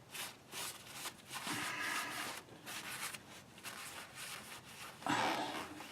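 A rag wiping and rubbing on metal bearing surfaces during cleaning: irregular scrubbing strokes with short pauses, strongest about one and a half seconds in and again near the end.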